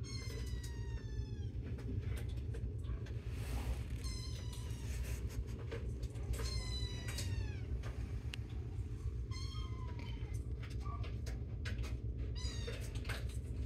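A cat meowing for attention: about five drawn-out, high cries, each falling in pitch and spaced a few seconds apart, screaming to be noticed.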